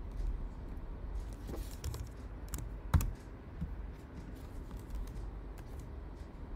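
Typing on a computer keyboard: irregular, scattered keystrokes, with one sharper key strike about three seconds in.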